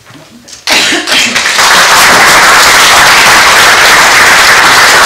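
Audience applauding, starting suddenly a little under a second in and going on loud and steady.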